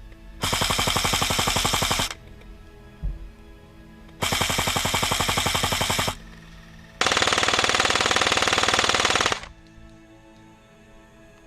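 Airsoft electric gun (AEG) firing on full auto in three long bursts of rapid clicks, each lasting about two seconds, the last one slightly longer.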